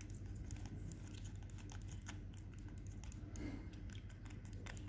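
Spoon stirring in a cup, giving light, irregular clicks and taps against the cup's sides over a faint steady low hum.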